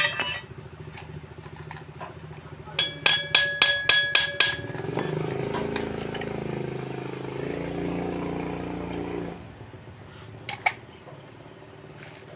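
Steel spanners and bolts clinking: a quick run of about seven sharp, ringing metal clinks. After them, a motorcycle engine runs with changing revs for about four seconds, and a couple more metal clicks come near the end.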